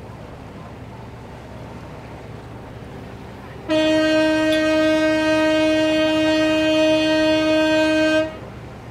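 A boat's horn sounding one long, steady blast of about four and a half seconds, starting a few seconds in, over a low steady rumble.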